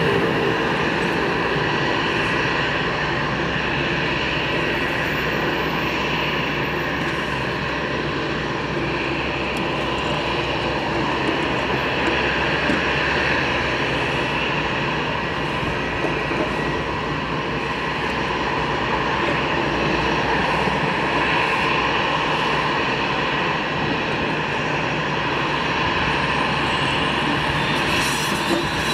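Twin turbofan jet engines of an easyJet Airbus A320-family airliner running steadily at low power while it holds on the runway before takeoff: a broad, even rumble with a thin steady whine on top.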